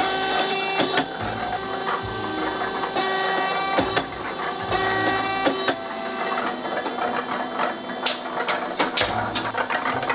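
Power screwdriver whirring in repeated bursts of a second or two, driving screws that fasten a wooden handle to a frying pan. Several sharp metal clicks come near the end.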